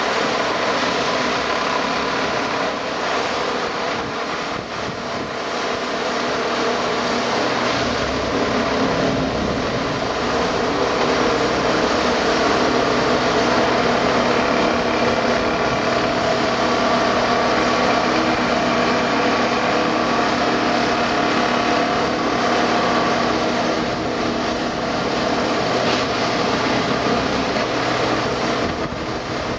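Plasser & Theurer 08-32 Unimat 4S track tamping machine working: its diesel engine and hydraulics run steadily, getting louder about a quarter of the way in.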